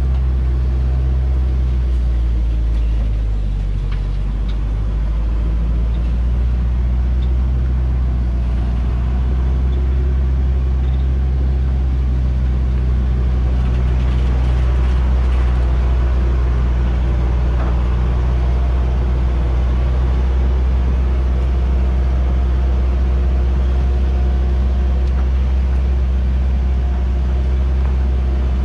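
Hoa Mai truck's diesel engine running at low, steady revs, a constant low drone, as the truck loaded with acacia logs creeps downhill on a rutted dirt track.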